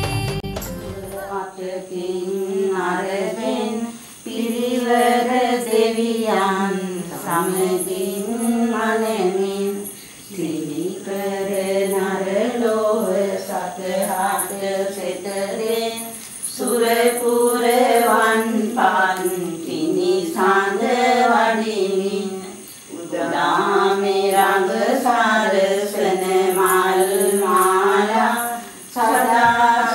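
A single voice singing a slow devotional chant in long melodic phrases, with a short break for breath about every six seconds.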